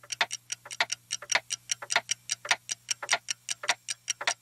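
Rapid, uneven ticking like several clocks ticking at once, about six or seven ticks a second, over a faint steady hum.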